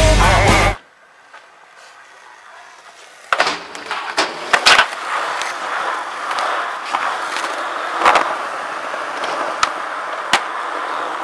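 Rock music cuts off under a second in. About three seconds in, skateboard wheels start rolling on concrete with a steady grinding hiss, broken by several sharp clacks of the board and trucks hitting the ground.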